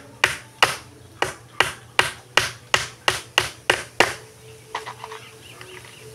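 Hammer nailing old wooden planks together: about a dozen quick, sharp blows at close to three a second, stopping about four seconds in, followed by a few faint light clicks.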